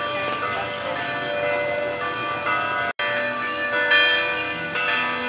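Background music of ringing, bell-like chimes, cutting out for an instant about three seconds in.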